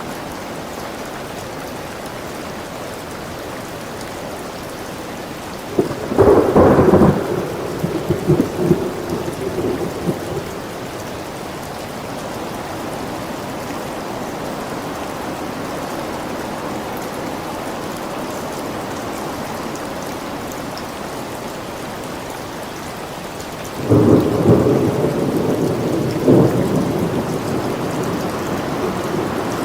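Steady rain falling in a thunderstorm, with two loud rolls of thunder: one about six seconds in that dies away over a few seconds, and another starting about 24 seconds in.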